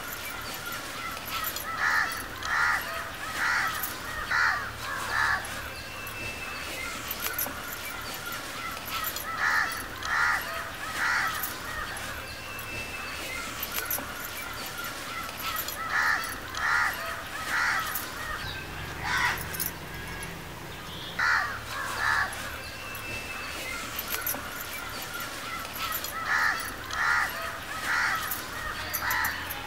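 Crows cawing outdoors in runs of two to five caws, repeated every few seconds.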